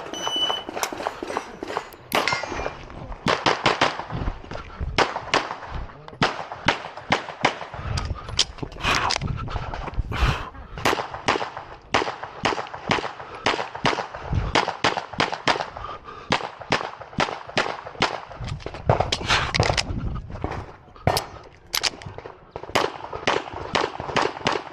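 A shot timer beeps once at the start. Then a pistol fires string after string of quick shots through an IPSC stage, with short pauses between strings and steel targets clanging.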